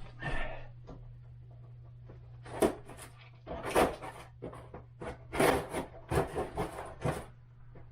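Wooden toilet seat and its packaging being handled: a run of knocks, scrapes and rubbing, about five louder knocks from about two and a half seconds in, over a steady low hum.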